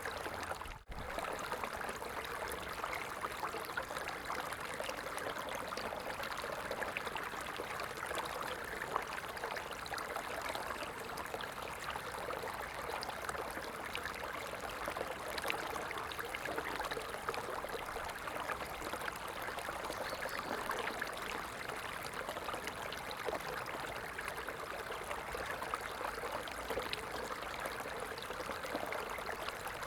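Running water flowing steadily, like a stream, with one brief dropout about a second in.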